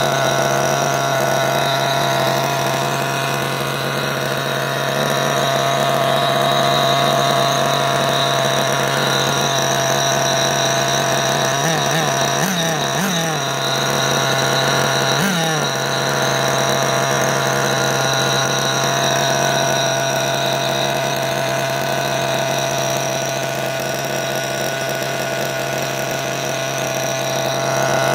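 Kyosho nitro engine in a 1/8-scale buggy idling steadily through its tuned pipe, a new engine on its first run on 20% nitro. Its pitch wavers briefly a few times about halfway through.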